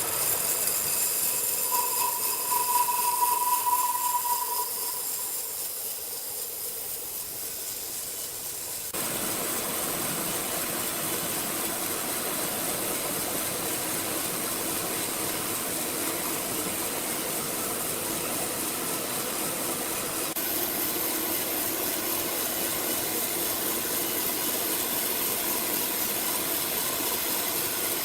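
Sawmill machinery running with a steady hiss and hum, with a brief high whine about two seconds in. The sound changes suddenly about nine seconds in and again past twenty seconds.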